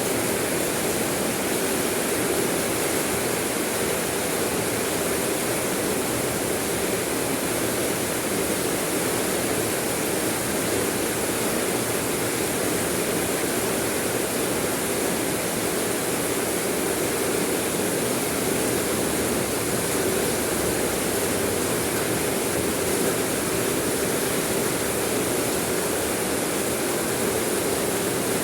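Rain falling, a steady unbroken hiss at an even level with no single drops or pauses standing out.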